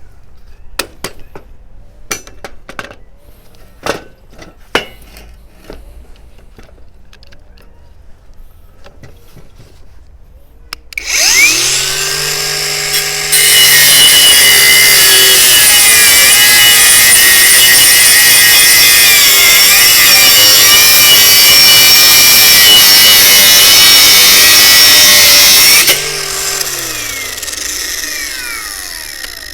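A few light clicks and knocks, then a Parkside PWSAP 20-Li C3 cordless brushless angle grinder spins up about eleven seconds in. Its disc cuts into material, loud and steady, for about twelve seconds. After that the motor winds down with a falling whine.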